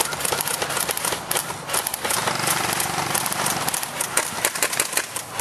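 Footsteps running through dry leaves and brush, a fast, irregular crunching and crackling.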